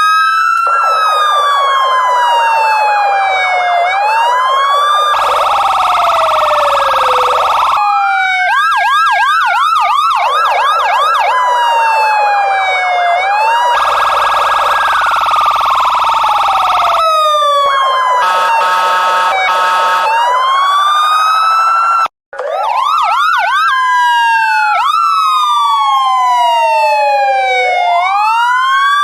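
Several electronic police car sirens sounding together, mostly the slow rising-and-falling wail, with a stretch of rapid yelp partway through. Twice a steady blaring tone holds for a few seconds, and the sound cuts out for an instant about two-thirds of the way through.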